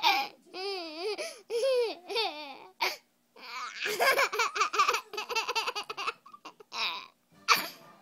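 A baby laughing hard in a string of fits, with a longer run of quick chuckles in the middle.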